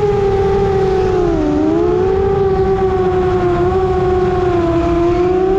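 FPV quadcopter's electric motors and propellers whining steadily, heard from the drone itself. The pitch wavers and dips briefly about a second and a half in before recovering, over a low wind rumble on the on-board camera's microphone.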